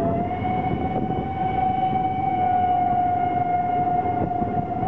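Whistle of the 141R 840 steam locomotive blown in one long steady note, over the continuous rumble of the train's carriages running on the track.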